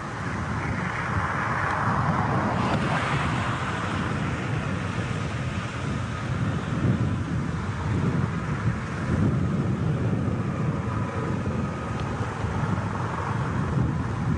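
Wind buffeting the microphone over the steady running of a military helicopter hovering at a distance.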